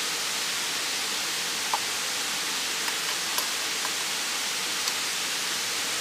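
Waterfall rushing steadily, with a few faint light clicks.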